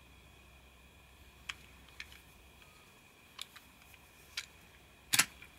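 Scattered sharp plastic clicks and taps as the cars of a Plarail 500 series Shinkansen toy train are handled, with a louder double clack near the end.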